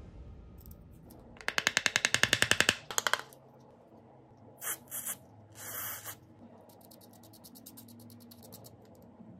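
Steel tweezers scraping packed grime out of a phone frame's bottom port and speaker holes, a fast rattling run of clicks. Two short hisses and one longer hiss follow from a spray can's straw nozzle, then a small stiff brush scrubs the port edge with faint, rapid ticking.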